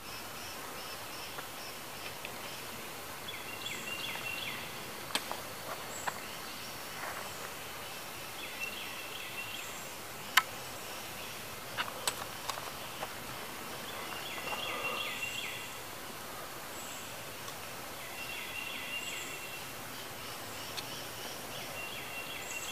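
Woodland ambience: a songbird repeating a short phrase of quick notes every few seconds over a steady background hiss, with a few scattered sharp clicks, the loudest about ten seconds in.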